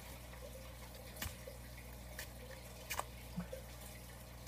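Playing cards being mixed by hand: a few faint, short clicks and taps about a second apart over a low steady hum.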